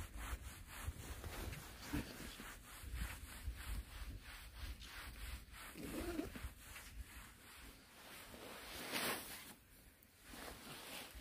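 Hands rubbing and brushing over a woven black drying mat, a faint run of scratchy strokes several times a second. About nine seconds in there is a brief louder rush as oat grain spills out of a sack onto the mat.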